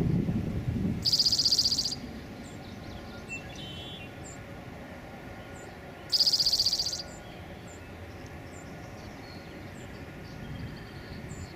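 Birds calling: two loud rapid high trills, about a second in and about six seconds in, with faint short chirps between them. Wind rumbles on the microphone at the start, over a faint low rumble of a distant jet airliner.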